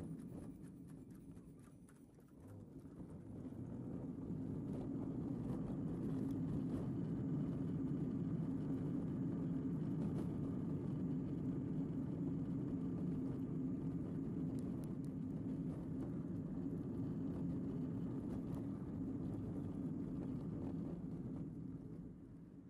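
Car driving over cobblestone streets, heard from inside the cabin: a steady rumble of tyre and engine noise that dips about two seconds in, then holds steady before easing off near the end.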